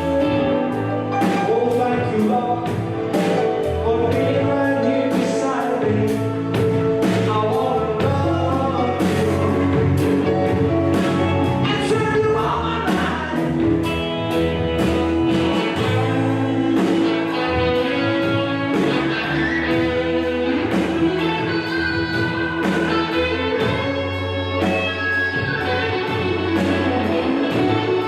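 Gospel-style song with singing over guitar and a steady beat.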